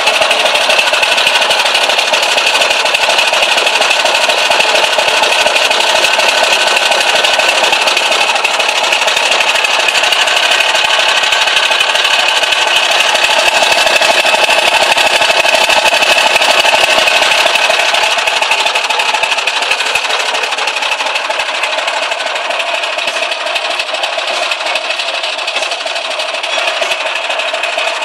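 Scania V8 diesel engine running steadily with a fast, even pulse, dropping a little in level about two-thirds of the way through.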